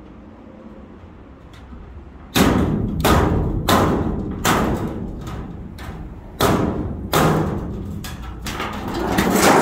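Hammer blows on a torch-cut corrugated steel container panel, knocking it free: about a dozen sharp metallic strikes at an uneven pace, starting about two seconds in, each with a ringing tail.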